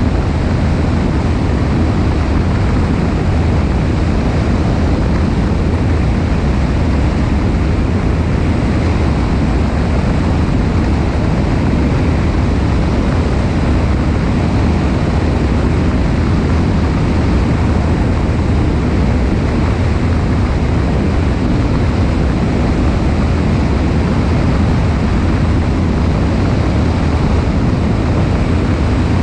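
Cessna 172 light aircraft in flight: the steady drone of its piston engine and propeller, mixed with wind rushing over a wing-mounted camera's microphone.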